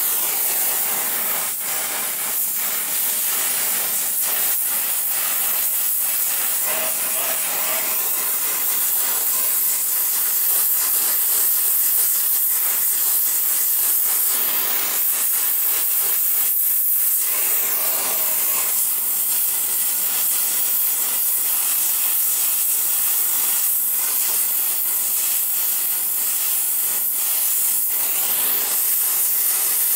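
Gas torch flame hissing steadily as it heats a rusted, seized stud in a cast iron exhaust manifold to free it.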